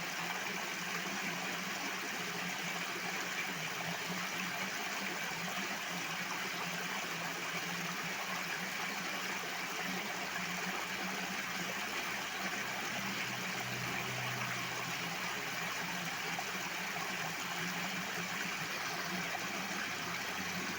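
Water rushing steadily and loudly, with a faint low hum underneath.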